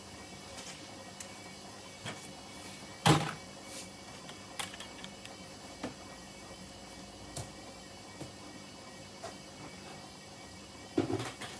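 Hoover H-Wash 300 washing machine running mid-cycle: a steady low hum with scattered clicks and knocks, and a louder thump about three seconds in.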